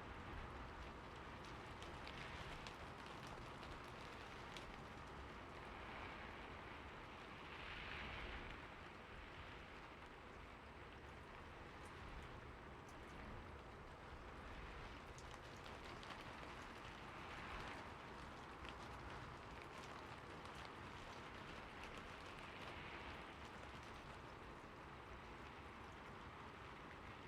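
Steady rain falling, with individual drops pattering on a surface and gentle swells in intensity every few seconds.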